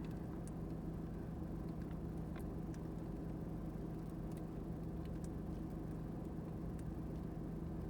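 A steady low mechanical hum, like an idling engine, that starts suddenly and holds even, with a few faint clicks over it.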